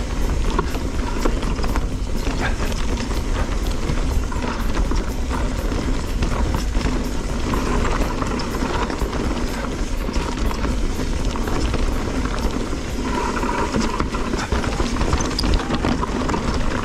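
Specialized Stumpjumper Evo mountain bike descending dirt singletrack: steady rush of tyres on the trail and wind, with frequent small clicks and rattles from the bike over bumps.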